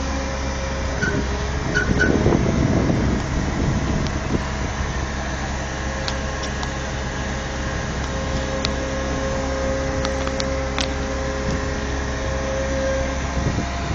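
A crane's engine running steadily, a continuous hum that gets louder for a moment about two seconds in, with a few faint clicks later on.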